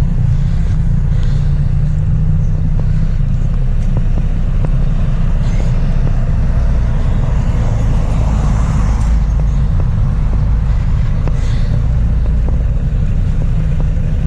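Steady low rumble of road traffic, with a vehicle passing about eight seconds in.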